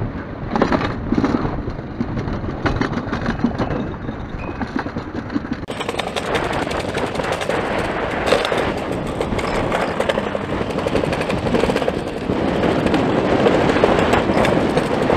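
Summer toboggan sled running fast down a stainless-steel trough, its wheels giving a continuous rapid rattling clatter against the metal.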